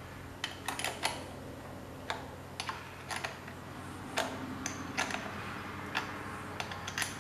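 Irregular small metallic clicks and taps, a dozen or so, as a hand wrench works the bolt on a lawn tractor's battery terminal, over a faint steady hum.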